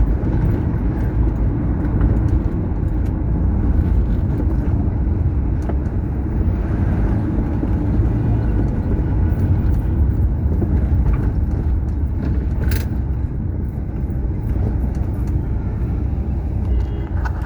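A car driving along a highway: a steady low rumble of road and engine noise, with a single sharp click about two-thirds of the way through.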